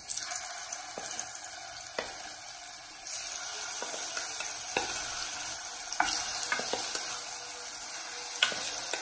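Marinated chicken pieces sizzling as they are dropped into hot coconut oil in a pot, the sizzle growing louder about three seconds in as more pieces go in. A metal spoon knocks against the pot about once a second, the sharpest knock near the end.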